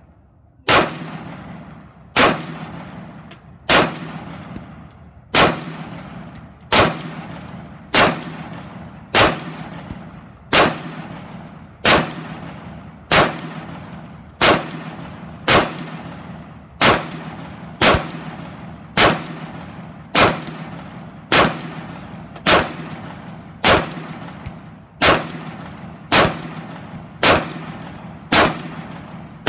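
Wolf A1 upper, a Taiwanese T65-pattern 5.56 mm rifle, fired in steady semi-automatic: about two dozen single shots, one every second and a half or so, each followed by a short ringing echo.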